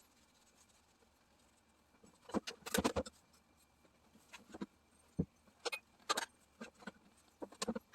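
Small knocks and clicks from handling tools and metal parts. They come as a quick cluster about two seconds in, then as single light taps here and there.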